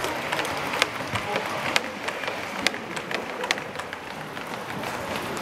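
Model train running along a layout track: sharp clicks at uneven intervals, several in the first three and a half seconds, over a steady hiss.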